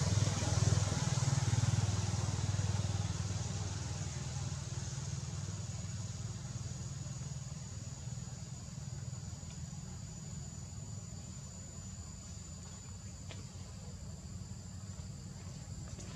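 Low hum of a vehicle engine, loudest in the first few seconds and then fading away, over a steady high-pitched insect drone.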